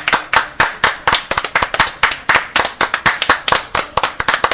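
A small group of children clapping their hands, many quick overlapping claps.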